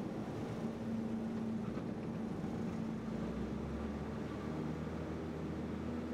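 Piston engine and propeller of a small single-engine airplane running steadily, heard from inside the cabin as a droning hum over a hiss. The engine note shifts slightly about three seconds in.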